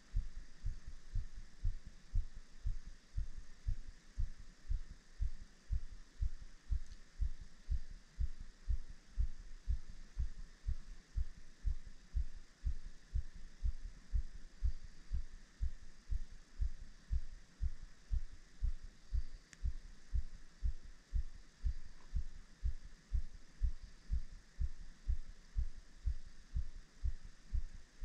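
Steady rhythmic low thumps close to the microphone, about two a second, typical of a spinning reel's handle being cranked to retrieve a cast lure.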